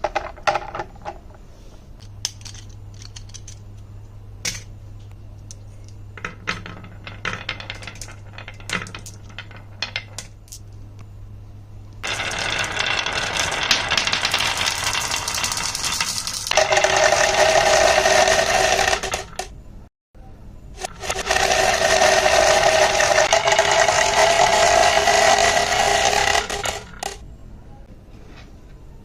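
Marbles clicking and clattering down a wooden marble run in scattered sharp knocks. About twelve seconds in, a loud continuous rattling whir with a steady hum in it takes over, cuts out abruptly for a moment, returns, and stops near the end.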